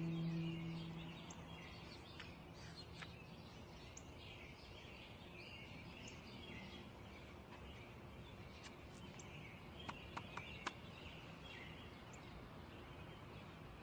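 Faint outdoor ambience of birds chirping. The tail of a held music note fades out in the first second or two, and a few soft clicks come about ten seconds in.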